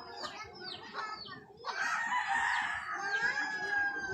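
Rooster crowing: one long held crow starting a little under two seconds in, preceded by a run of short, high, falling chirps repeated about twice a second.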